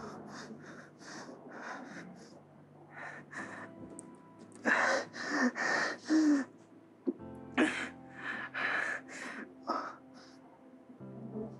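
Ragged, gasping breaths of a person in distress, in quick uneven bursts that grow heaviest about halfway through. Soft background music with low sustained tones plays underneath.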